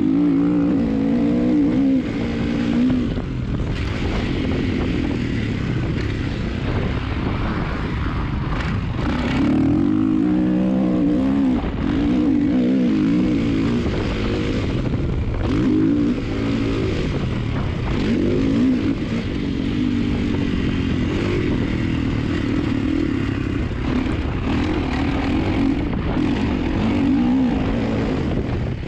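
Motocross bike engine ridden hard round a dirt track, its pitch climbing and dropping again and again as the throttle is opened and rolled off. A constant low rumble of wind on the microphone runs underneath.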